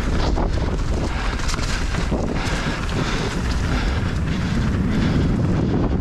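Wind rushing over an action camera's microphone as a mountain bike rides down a dirt trail, with low tyre rumble and the clatter of the bike over the ground.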